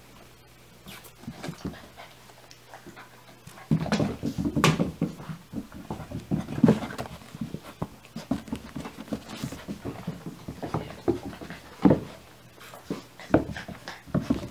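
Border collie puppy panting hard close by, with scuffles and sharp knocks from play with a ball and toys; quiet for the first few seconds, then busy and irregular.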